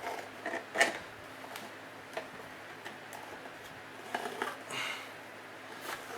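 Scattered metallic clicks, knocks and scrapes of a tool working at the sealed tin lid of a surplus ammunition can, the sharpest knock just under a second in.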